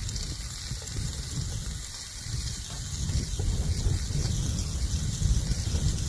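Wind buffeting the microphone in low, rumbling gusts that grow stronger about two seconds in, over a steady high hiss of food frying in a pan.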